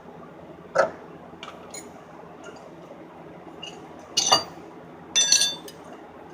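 Steel sockets clinking against each other as a socket set is searched for the right size: a few separate sharp metallic clinks, the one a little after five seconds in ringing briefly.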